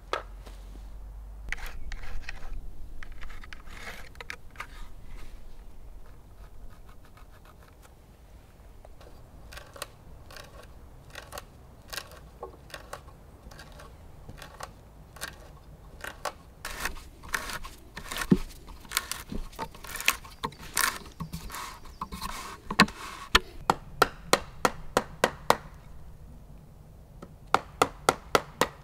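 Hand-tool woodwork on a log: scraping and creaking as a hole is bored by hand, with scattered knocks, then a run of sharp wooden mallet blows on a chisel, about three a second near the end.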